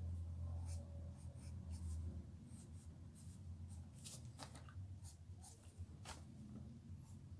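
Graphite pencil scratching on paper in short, irregular strokes, a few stronger ones about four and six seconds in, over a faint steady low hum.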